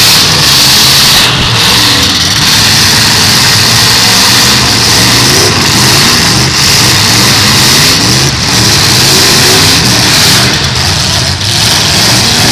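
Several full-size demolition derby cars running at once, their engines revving up and down over one another, loud and continuous.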